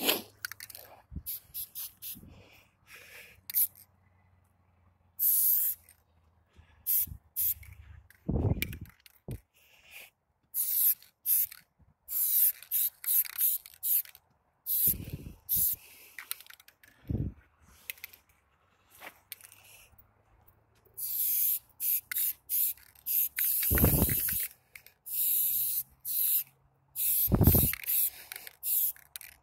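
Aerosol spray-paint can sprayed at close range in many hissing strokes, some short, some held a second or more, as graffiti is painted onto a concrete wall. A few dull thumps come between the strokes.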